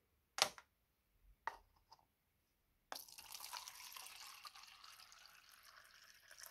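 A thin stream of water poured into a plastic measuring cup, a steady splashing fill starting about three seconds in. Before it come a few light knocks as a metal rocker arm is set down on the steel bench.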